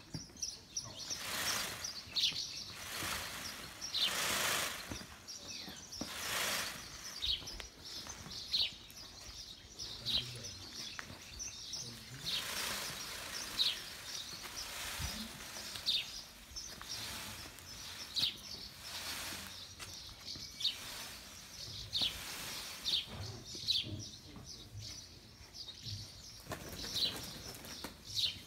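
Small birds chirping over and over, with several short bursts of rustling from a peacock shaking its fanned train in courtship display.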